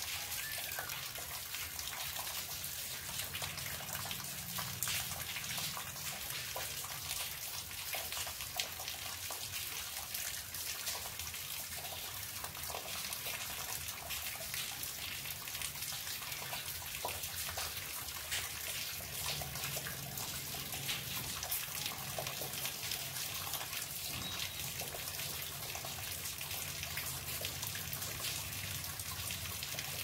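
Rainwater running off the side of a terrace and splashing steadily onto wet ground during light rain, with many small drop ticks scattered through it.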